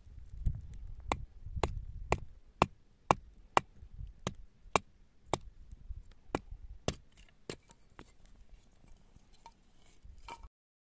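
Sharp, evenly spaced knocks, about two a second, growing fainter and stopping abruptly near the end.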